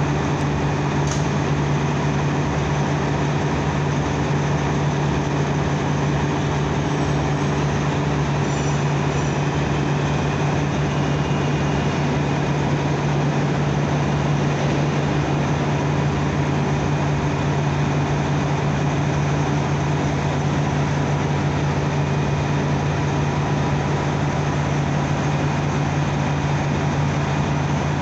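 Subway vacuum train running while standing at the platform: a steady low drone with a strong hum that does not change.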